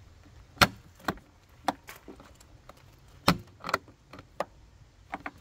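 Metal fridge slide being worked by hand at its latch and handle: a series of sharp, uneven clicks and clunks, the loudest about half a second in and about three seconds in.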